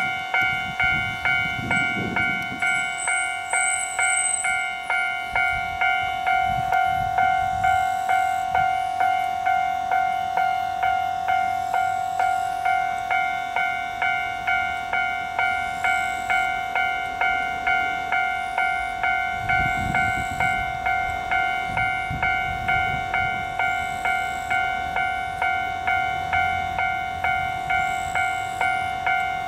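Railway level crossing warning bell ringing in an even, repeating clang, about three strikes every two seconds, signalling an approaching train.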